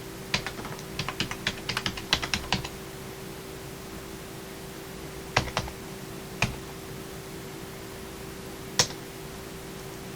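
Keys of an IBM Aptiva KB6323 dome-membrane keyboard being pressed on the number pad: a quick run of key presses in the first few seconds, then a few single presses spaced well apart.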